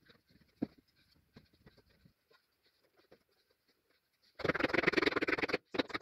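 Light wooden clicks and knocks as beehive frame top bars are set into an assembly jig. About four and a half seconds in comes a loud, rapid clatter lasting about a second, which starts again just before the end.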